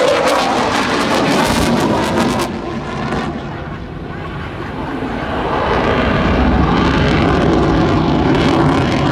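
Aircraft engine noise from a display aircraft, with wind buffeting the microphone for the first couple of seconds. The deep engine rumble grows louder in the second half.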